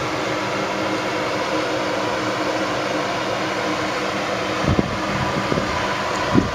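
Nissan Frontier Pro-4X pickup running at a slow crawl down a rock ledge, a steady engine and road noise, with a few low thumps about two-thirds of the way through and near the end.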